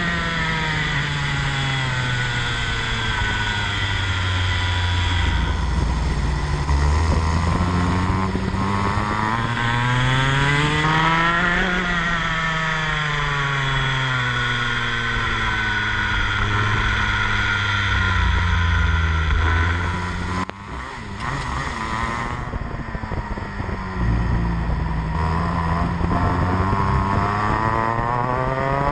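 Rotax Max Evo kart's 125cc two-stroke single-cylinder engine under way on track, its note rising and falling repeatedly as the kart accelerates and slows. About twenty seconds in the engine note drops away briefly, then it picks up and climbs again near the end.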